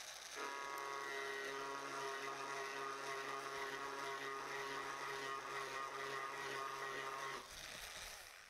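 Small high-speed rotary tool with a burr bit cutting a groove into a plastic car bumper, preparing it to take filler plastic. It runs at a steady pitch, a constant whine over a hiss, and stops about a second before the end.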